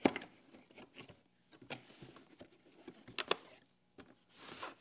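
Cardboard packaging being handled: a few light clicks and taps against the cardboard, then a short rustle near the end as the cardboard sleeve slides off a hard plastic carrying case.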